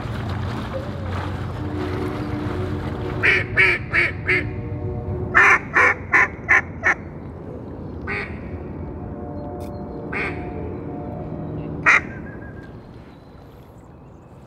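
Duck quacking in quick, loud runs: four evenly spaced quacks, then five, then three single quacks a couple of seconds apart. A steady low rumble underneath drops away near the end.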